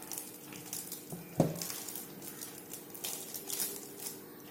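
Light clicks, taps and rustles of a small plastic toy washing machine being handled, with one sharper knock about a second and a half in.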